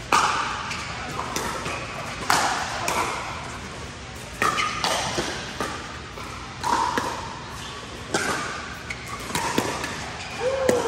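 A series of sharp, irregularly spaced impacts, about a dozen, each with a short ringing tail.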